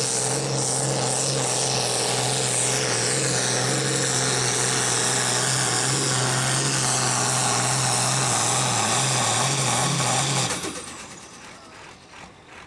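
Diesel pulling tractor at full throttle dragging a weight-transfer sled, the engine running loud and steady at high revs with a high whine over it. About ten and a half seconds in, the engine is cut and the sound drops away quickly, leaving faint rhythmic clicking.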